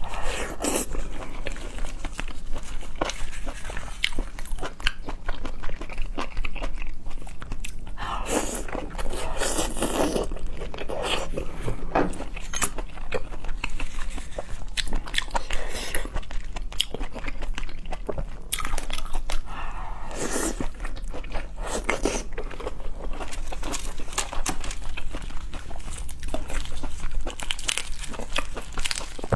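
A person eating close to the microphone: crunchy bites and chewing with many small mouth clicks, in irregular bursts.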